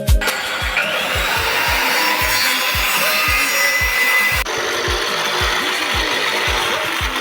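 Power saw cutting through marine board (plywood), a steady, loud rasping hiss that changes tone about four and a half seconds in.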